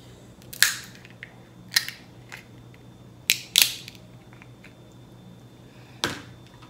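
Kitchen shears cutting into a crab claw's shell, giving several sharp cracks spaced a second or more apart.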